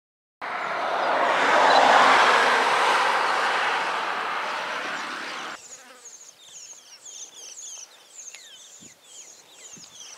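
A loud rushing noise swells and then slowly fades over about five seconds and cuts off suddenly. It gives way to a quiet outdoor background full of short, high chirping calls, many of them falling in pitch, repeated in quick succession.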